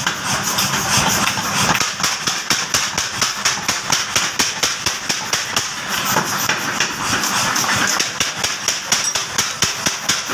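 50 kg mechanical power hammer pounding red-hot steel on its anvil in a rapid, steady rhythm of blows, several a second, over the running of its motor and drive.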